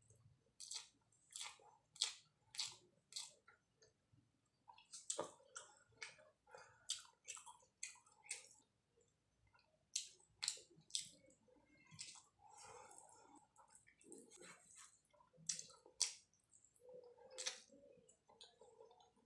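Close-miked chewing and lip smacking on mouthfuls of rice and egg curry: sharp, wet mouth clicks coming irregularly in quick runs, with short pauses between them.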